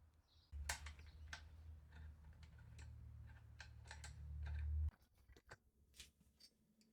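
Scattered light clicks and ticks of small parts and tools being handled, over a low hum that grows louder and then cuts off suddenly about five seconds in.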